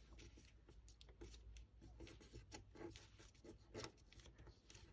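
Faint rustling and rubbing of origami paper under fingertips as it is folded and its creases are pressed flat, with scattered soft ticks and one slightly louder one near the end.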